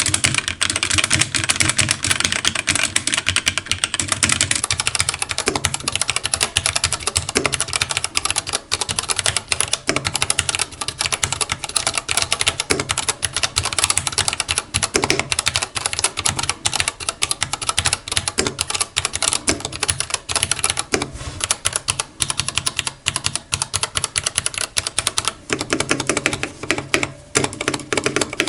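Rapid, continuous typing on a Dark Project KD87A mechanical keyboard: the key clicks of its factory-lubed Gateron Cap Teal switches under PBT doubleshot keycaps.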